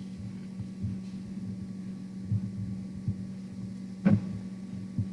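A steady low hum with a few soft, scattered thumps and knocks.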